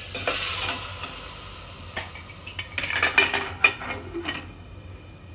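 Hot desi ghee tempering (asafoetida, cumin, red chilli) sizzling as it hits arhar dal in a pressure cooker, the sizzle fading over the first couple of seconds. Then a run of metal clinks and knocks as the pressure cooker's lid is put on.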